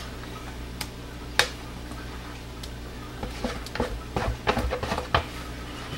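Plastic bucket handled while thick soap batter is poured into a plastic mold: a sharp click about a second and a half in, then a run of light clicks and knocks, over a steady low hum.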